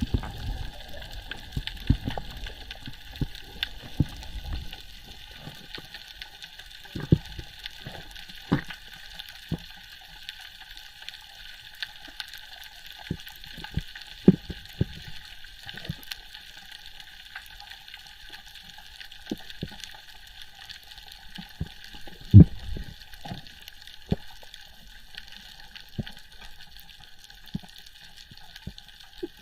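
Water heard through a camera housing, most likely underwater on a reef: a steady hiss with scattered clicks and dull knocks, the loudest knock about 22 seconds in.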